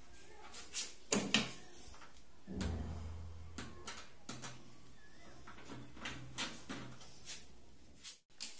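Aluminium window parts clacking and knocking as a small cleat is fitted against the profile, with two sharp clicks about a second in. This is followed by scattered light clicks as a hand screwdriver drives a screw into the aluminium.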